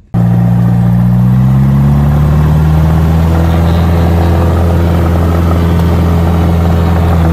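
Cessna light aircraft's piston engine and propeller running steadily, heard loud from inside the cockpit. The pitch drops slightly about two seconds in.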